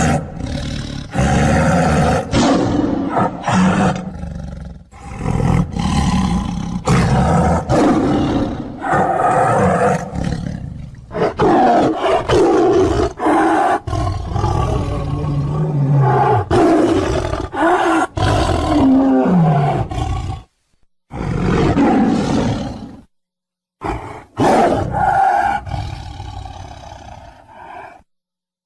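A long series of loud roars and growls, one after another with short breaks, some sliding down in pitch: a creature-roar sound effect, of the kind used for a monster or spirit.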